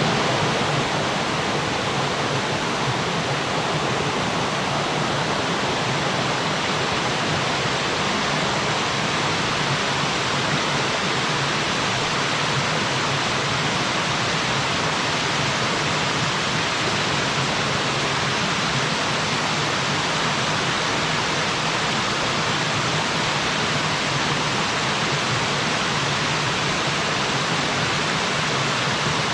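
Waterfall on a mountain stream: water falling and rushing steadily, a constant even roar with no breaks.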